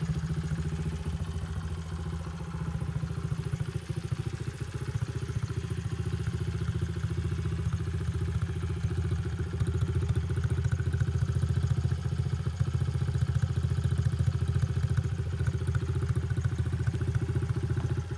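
2009 Honda CRF50F pit bike's small single-cylinder four-stroke engine running steadily with a fast, even pulse, getting a little louder about ten seconds in.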